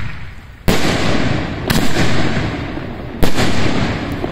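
Aerial firework shells bursting overhead: three loud bangs, the first about a second in and the others a second or more apart, each trailing off slowly in a rumble.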